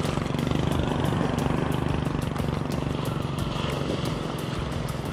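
Boat engine running steadily at idle, with a fast regular ticking of about four a second.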